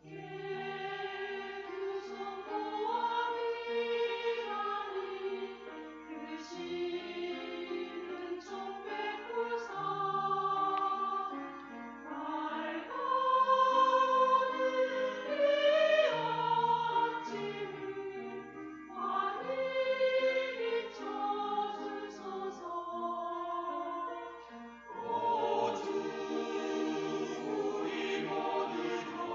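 Church choir singing a hymn in several parts, in phrases that swell loudest near the middle.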